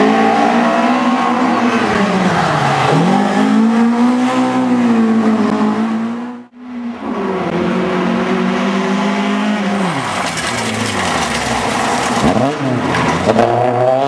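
Rally car engines running at full throttle, the pitch climbing and dropping with each gear change. The sound breaks off sharply about halfway through, then another car is heard revving hard through the gears.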